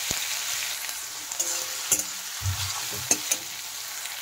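Shredded potatoes sizzling in hot mustard oil in a metal kadai, while a metal spatula stirs them and knocks and scrapes against the pan a few times.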